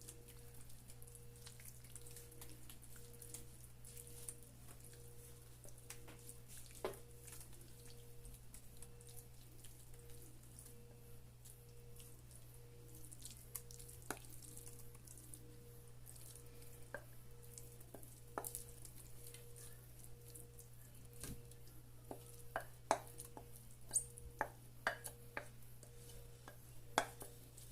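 Faint scattered clicks and light scrapes of a spoon spooning tuna filling into a baking pan, with a quicker run of clinks near the end, over a steady low hum.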